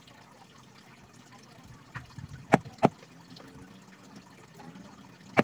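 Sharp wooden clicks from handling and working a carved teak golok handle: a pair about a third of a second apart midway, and another near the end, over a quiet background.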